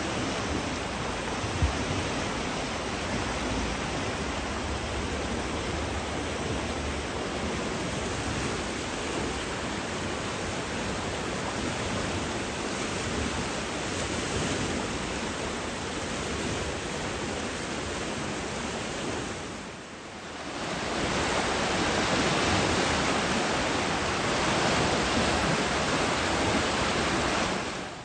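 Steady rushing of a swollen, muddy stream in flood. About two-thirds of the way through it drops out for a moment and comes back louder.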